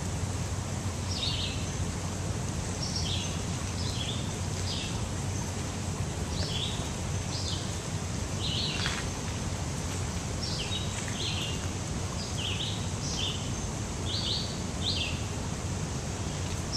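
A bird calling over and over in woodland, short high chirps, often in stepping-down pairs, about once or twice a second, over a steady outdoor hiss.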